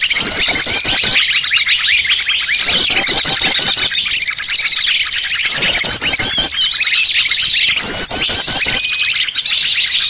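A dense, noisy chorus of many small songbirds' chirps, calls and trills layered together, with a fast high trill recurring every few seconds over a steady high whine. It is a bird-trapping lure recording made to draw small birds in.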